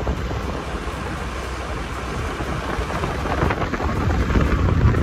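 Wind rumbling on the microphone of a moving vehicle, over steady road and traffic noise. It grows louder near the end.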